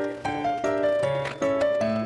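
Background music: a tune of short pitched notes on a steady beat, about two and a half notes a second.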